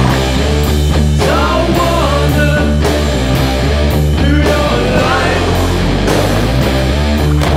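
Rock music soundtrack with electric guitar over a steady bass line.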